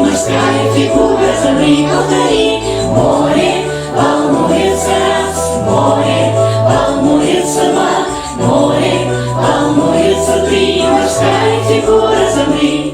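Children's dance song playing: a group of voices singing over a steady, bouncy beat.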